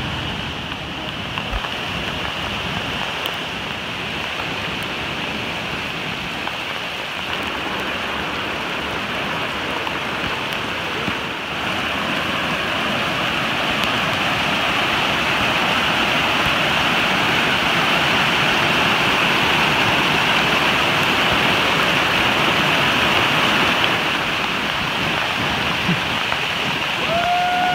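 Rushing floodwater of a swollen, muddy stream pouring over rocks: a steady hiss of water that gets louder about twelve seconds in. A short high call is heard near the end.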